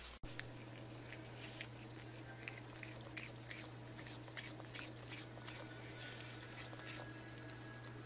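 A cat eating wet food from a small plastic tray: irregular wet clicking chews and smacks, thickest in the middle seconds, over a steady low hum.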